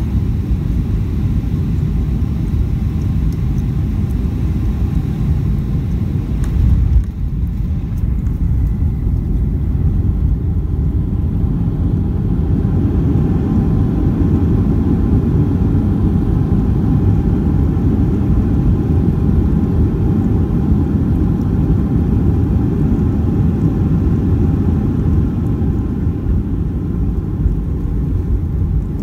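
Steady low rumble of an airliner cabin on landing. About seven seconds in comes a single thump, the main wheels touching down, and the rumble of the roll-out on the runway follows.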